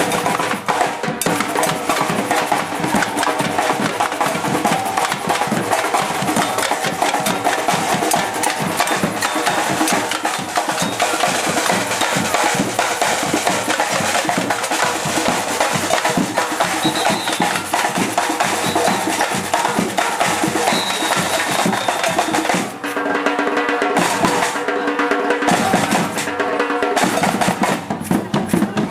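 A percussion ensemble drumming together in a dense, driving rhythm of bass drums, snares and wood-block-like clicks. About 23 seconds in, the pattern changes and the high crisp strokes thin out while the low drums carry on.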